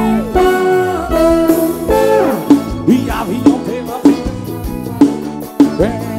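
Live forró band music. A long falling sweep effect ends about a second and a half in over held, bending chords, then a steady drum beat comes in at about two beats a second.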